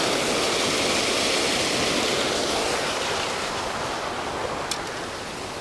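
Steady rushing of water pouring over a sewage-plant outfall spillway into a creek pool, growing a little quieter toward the end, with a couple of faint clicks near the end.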